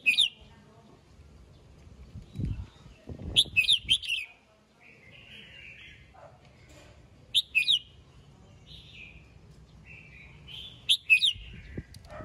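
Red-whiskered bulbul singing in short phrases: clusters of bright, sharp whistled notes about every three to four seconds, with softer chattering between them. A few dull low thumps also sound.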